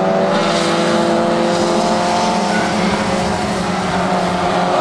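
Mazda Miata race car engines running at a steady drone over a constant hiss, which grows slightly stronger shortly after the start.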